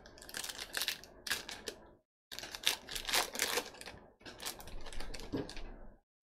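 A plastic trading-card pack wrapper crinkling and tearing as it is ripped open by hand, in three bursts of crackling.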